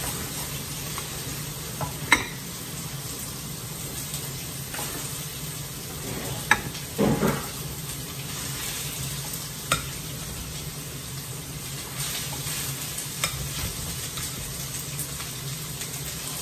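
Fried rice frying on low heat in a frying pan with a steady, gentle sizzle as it is stirred and broken up with a spatula. A few sharp knocks of the spatula against the pan, the loudest about two seconds in and around seven seconds.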